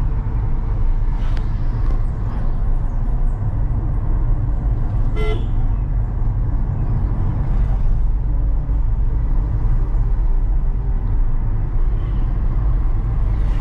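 Steady low rumble of a car driving, heard from inside the cabin. A vehicle horn gives one short toot about five seconds in.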